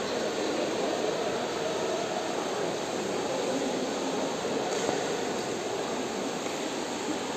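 Steady, echoing din of an indoor pool hall: the continuous splashing of many swimmers, with no single event standing out.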